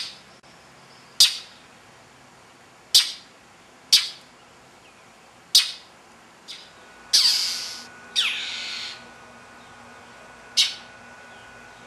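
Northern mockingbird scolding a stalking cat with harsh alarm calls. About seven short, sharp calls come at irregular intervals of one to one and a half seconds, with two longer rasping calls that fall in pitch, seven to nine seconds in.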